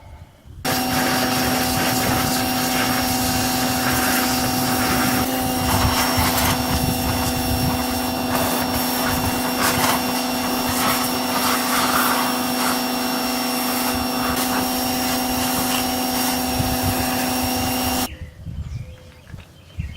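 Snap-on pressure washer running and spraying: a steady hum from its pump with the hiss of the water jet. It starts suddenly about a second in and cuts off suddenly near the end.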